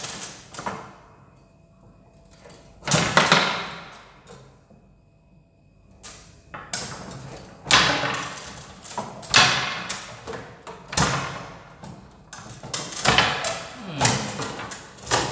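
Foosball table in play: sharp knocks and clacks as the plastic players strike the ball and the steel rods slide and bang against the frame. The hits come in quick clusters, with a quiet lull of a couple of seconds partway through.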